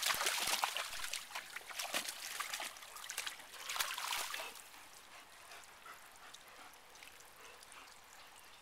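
Dogs splashing as they wade in a shallow stream over the trickle of running water; the splashing dies down about halfway through, leaving only the quiet trickle.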